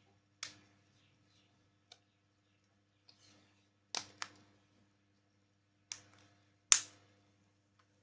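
Scattered sharp clicks and taps of a mobile phone and its packaging being handled, irregular and a few seconds apart, the loudest near the end.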